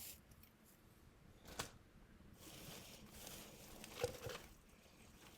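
Faint handling of packaging: a sharp click, then a soft crinkling rustle about halfway through, and a small knock near the end as items are lifted out of a box.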